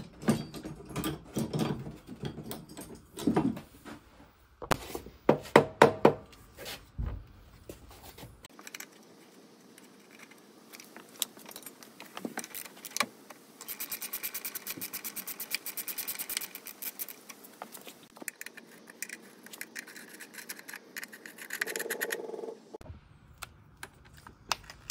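Metal tools and loose motorcycle parts clinking, knocking and scraping during disassembly, with the loudest knocks about five seconds in and a run of rapid, even clicks about halfway through.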